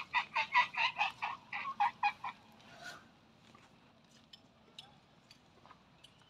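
Young Asian elephant squeaking: a quick run of about a dozen short, high calls over the first two seconds or so, then only faint scattered ticks.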